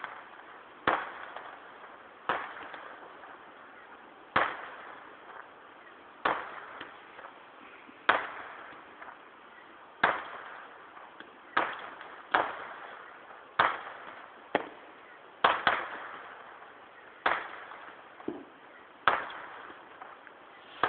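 Aerial firework shells bursting a mile or two away, a sharp bang every one to two seconds, each trailing off in a rolling echo. Heard through a mobile phone's tinny microphone.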